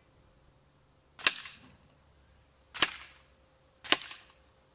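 Three sharp cracks, about one to one and a half seconds apart: shots from an SMK Victory PP700W pre-charged pneumatic air pistol, the pellets knocking bottle caps off a wooden board.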